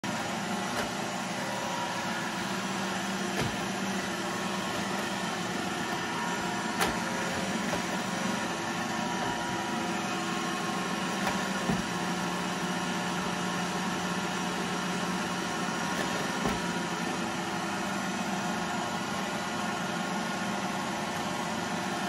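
iRobot Roomba i7 robot vacuum running with a steady whirring hum, with a few short knocks, the loudest about seven seconds in, as its bumper hits the table legs: the robot is trapped under a low table and keeps bumping around trying to find its way out.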